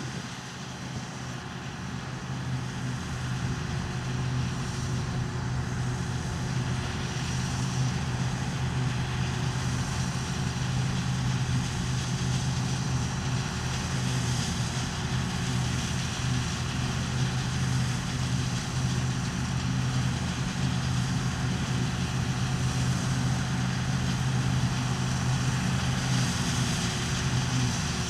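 New Holland Clayson 8060 combine harvester running steadily: a deep, even engine hum under the rushing noise of its machinery, growing louder over the first few seconds.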